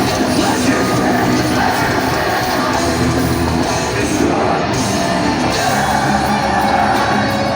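Death metal band playing live at full volume: heavily distorted guitars, bass and drums, with shouted vocals.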